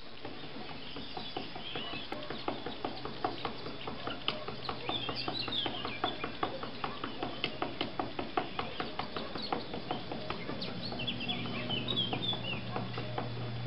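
An even run of short clicking clucks, about four a second, that stops near the end, with small birds chirping high up in short bursts and a low steady hum underneath.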